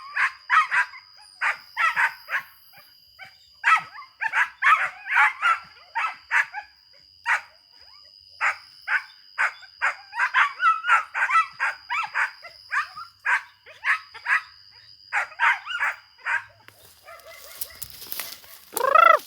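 Young dog barking in quick runs of short, high barks, baying as it is trained to bay. Near the end, a rustling noise and one longer call.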